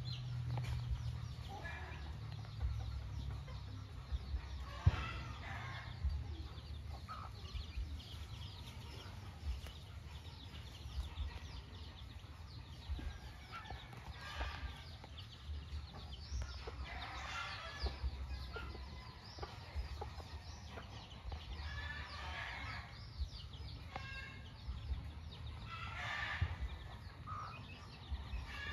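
White Kelso gamefowl hen clucking and her chicks peeping, in short bouts every few seconds.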